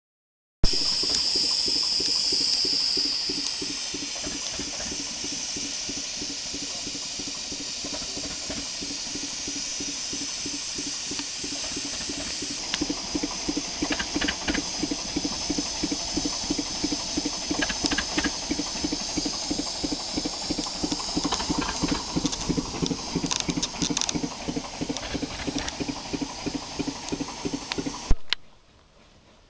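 Small narrow-gauge steam locomotive working slowly, with a steady loud hiss of steam and a fast regular beat underneath. From about halfway through, sharper rhythmic beats stand out, about two or three a second. The sound cuts off abruptly near the end.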